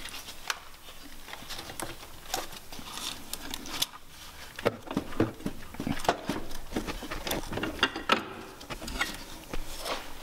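A loosened alternator on a Nissan 300ZX engine being worked by hand in its mounting bracket, giving irregular clicks and light metal knocks.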